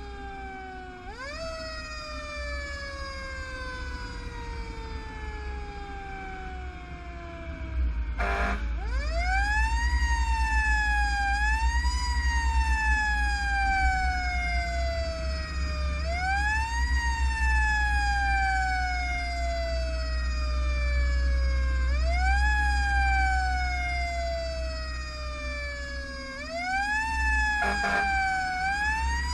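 Fire engine siren, wound up again and again: each time the pitch rises quickly, then falls slowly for several seconds before the next wind-up. Two short, sharp blasts cut in, one about a third of the way in and one near the end, over the steady low rumble of the truck, which grows louder at the first blast.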